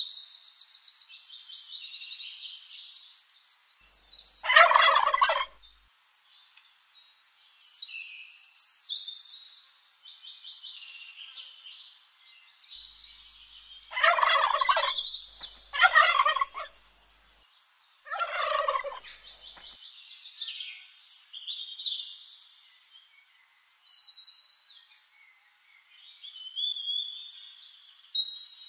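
Wild turkey toms gobbling, four loud rattling gobbles, two of them close together in the middle, with constant high-pitched chirping in between.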